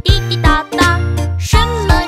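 Children's song: a voice singing a bouncy melody over a bright backing track with a steady drum beat.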